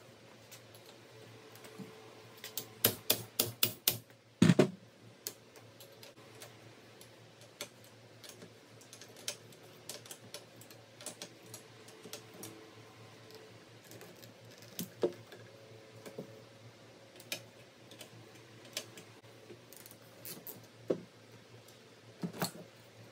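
Hand tools and metal parts clicking and knocking during motorcycle disassembly. About three seconds in there is a quick run of roughly eight sharp clicks, then a heavier knock; after that come scattered light clicks and taps.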